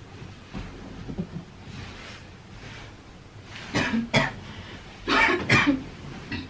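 A person coughing: two sharp coughs about four seconds in, then two more about a second later.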